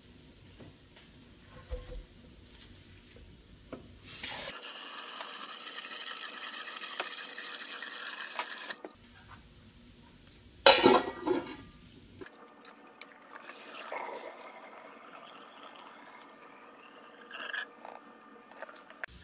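Water runs steadily into a pot of cooked glass noodles in the sink. A sharp metal clatter follows as the pot and its strainer lid knock together, then water pours off through the lid into the sink, with a few light knocks as the noodles are drained again.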